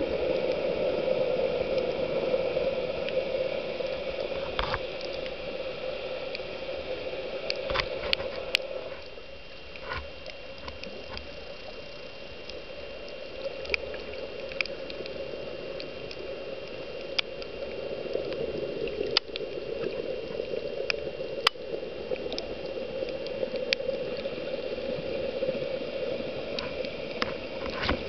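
Underwater recording on a coral reef: a steady muffled water noise, quieter for several seconds in the middle, with scattered sharp clicks and crackles.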